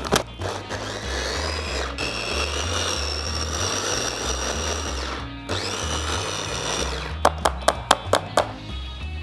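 Electric mini chopper whirring as it purees red onion, in two pulses: a long run of about four seconds whose pitch climbs as the motor spins up, a brief stop, then a shorter second run. A quick series of sharp taps follows near the end, over background music with a steady beat.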